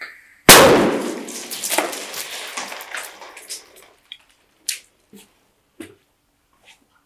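Zeus airsoft pyrotechnic hand grenade set off as a tripwire booby trap: the pulled line lets the rubber band slip off the grenade's lever. It goes off with one sharp bang about half a second in, followed by a crackling, echoing tail in a bare room that dies away over about three seconds, then a few scattered footsteps.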